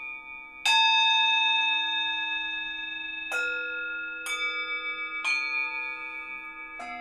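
Tibetan singing bowls resting on a person's back, struck one after another with a wooden mallet: five strikes, the first and loudest about half a second in, each bowl ringing on at its own pitch so the long tones overlap and slowly fade.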